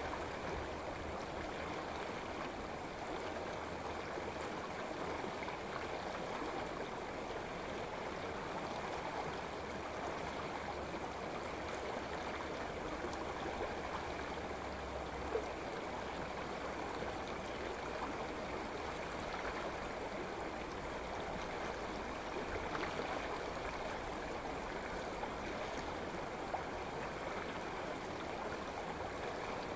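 Shallow woodland stream running over rocks and stones: a steady, even rush of water.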